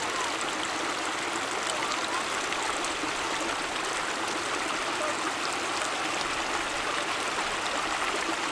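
Small stream of water running and trickling over shore stones, a steady, even rushing.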